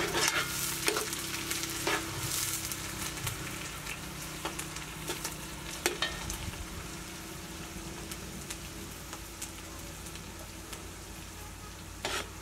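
Shredded vegetables sizzling as they fry in oil in a large aluminium pot over a wood fire, with a steady hiss. A slotted metal ladle stirs them, scraping and knocking against the pot several times, mostly in the first couple of seconds and again about six seconds in.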